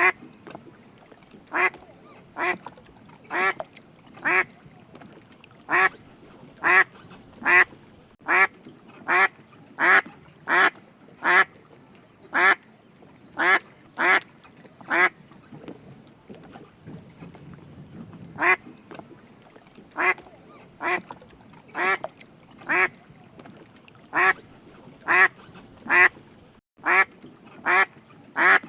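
A duck quacking over and over: short single quacks and quick pairs at uneven intervals, with a pause of about three seconds a little past halfway.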